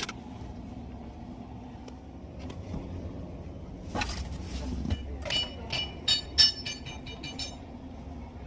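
A quick run of small metallic clinks and ticks with a ringing edge, as of hand tools or metal parts knocking together, from about five seconds in to near the end, after a short rustle of movement; a steady low hum runs underneath.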